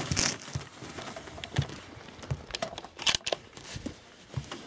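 Irregular rustling and crinkling handling noise with scattered light clicks and knocks, the sharpest a little past three seconds in.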